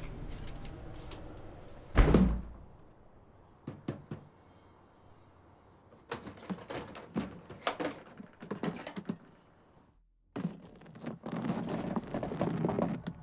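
A door closes with a loud thump about two seconds in. Later come quick clicks and scrapes of an old suitcase being handled, its catches worked and its lid lifted open.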